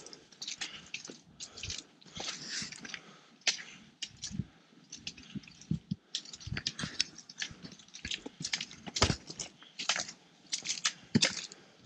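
Footsteps crunching irregularly on a rocky, gravelly trail during a steep uphill climb.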